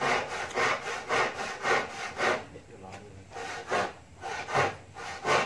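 Hand saw cutting wood, back-and-forth strokes about twice a second, pausing for about a second midway before sawing resumes.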